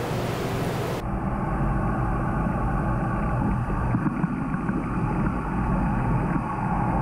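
Muffled underwater sound of a fishing pond: a low rumble and crackle with a faint steady hum, cut off suddenly above the low and middle range. For the first second, before it starts, there is a steady hiss of room and water noise.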